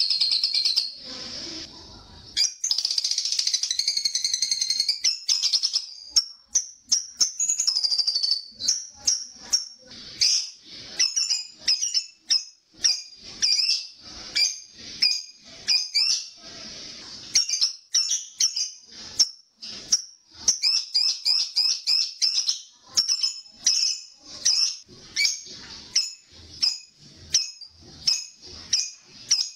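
Lovebird calling in high, shrill notes. It gives a dense unbroken chattering trill, the long 'ngekek' chatter, at the start and again a few seconds in. From about six seconds on it switches to a long series of short, sharp chirps several a second, recorded as a tutoring call to set caged lovebirds chattering.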